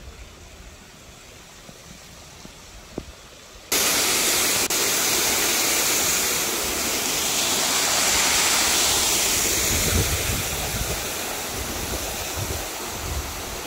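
A low background at first, then about four seconds in a sudden loud, steady rush of falling water sets in, like a waterfall, easing a little towards the end with some low rumbles.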